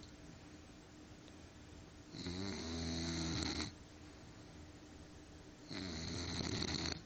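English bulldog snoring in its sleep: two long snores, each about a second and a half, a few seconds apart.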